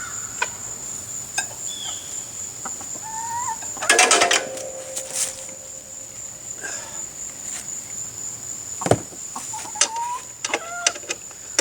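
Birds calling outdoors: short pitched calls, and a loud, harsh squawking burst about four seconds in. A steady high-pitched whine runs underneath, and there is a single sharp knock near the nine-second mark.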